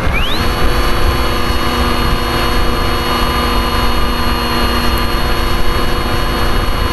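Tower Pro 2408-21 brushless motor spinning a 7x6 propeller, heard from the onboard camera: its whine climbs sharply in pitch as the throttle is opened just after the start, then holds steady at high power over a low rush of noise.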